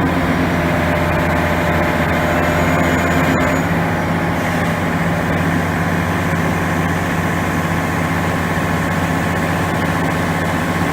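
Hitachi ZX450LC excavator's diesel engine running steadily while the hydraulic boom is raised and lowered, with a fainter higher whine over the engine that drops away about four seconds in.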